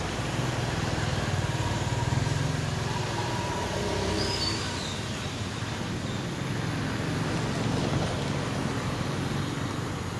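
Steady road traffic noise with a small engine running, and a brief faint high squeal about four seconds in.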